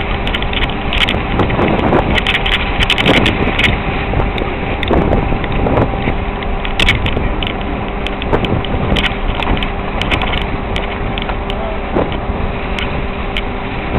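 A motor vehicle driving over a rough, rutted dirt track with its engine running steadily. Irregular knocks and rattles sound as it goes over the bumps.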